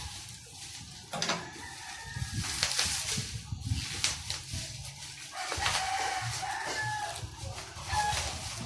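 A rooster crowing, once about a second and a half in and again in a longer call from about five and a half seconds, over crackling and rustling of plastic packaging being handled.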